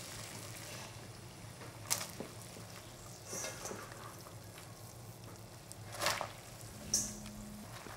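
Water at a rolling boil bubbling in a pot, with a few brief splashes and knocks as handfuls of oyster mushrooms are dropped in to blanch.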